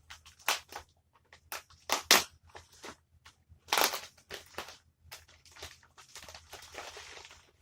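Packaging of a kit being handled and opened by hand: a series of crackles and crunches, the loudest about two seconds and four seconds in, then a longer rustle near the end.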